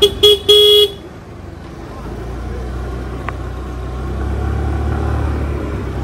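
A vehicle horn honks three times in quick succession, two short toots and a longer one, all on the same steady pitch. After it a low vehicle rumble grows louder from about two seconds in.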